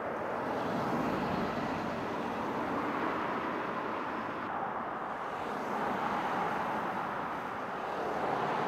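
Steady noise of vehicles at the roadside, engines running, swelling slightly about a second in and again near the end.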